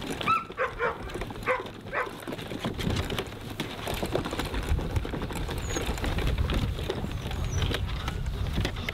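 A few short, high whines from Weimaraner puppies in the first two seconds, then the hard plastic wheels of a children's wagon rolling over a bumpy lawn: a steady low rumble with frequent small knocks and rattles.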